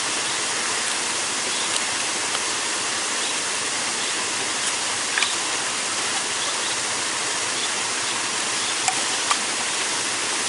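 Steady rush of river water tumbling near a waterfall, an even hiss with no change. A few faint ticks from handling the wet net sit over it.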